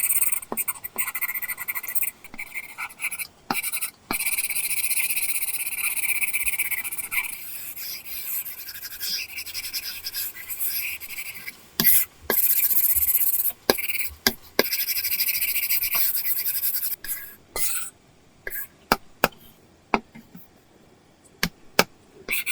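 Apple Pencil nib scratching across a paper-textured screen protector on an iPad in long drawing strokes. In the last few seconds the strokes give way to a run of short, sharp taps of the nib on the screen.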